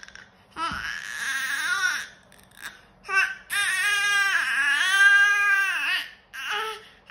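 Young baby vocalizing in loud, high, drawn-out cries: one call about a second long near the start, a short one around three seconds, then a long one of about two and a half seconds, the loudest, in the second half.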